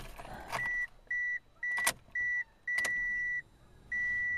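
Car warning chime beeping: a steady high electronic tone in six uneven on-off pulses, one noticeably longer than the rest, with a couple of sharp clicks between them.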